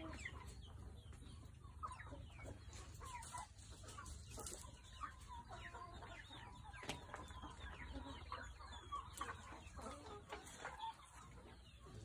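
Chickens clucking, with short scattered calls from several birds at a low level.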